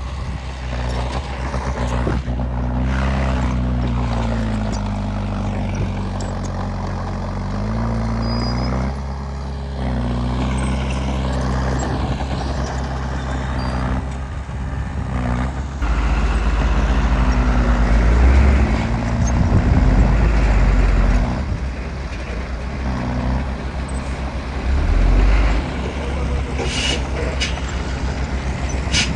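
Heavy diesel engines of earthmoving machinery at work, revving up and down under load. There are louder low surges in the middle and a couple of short sharp sounds near the end.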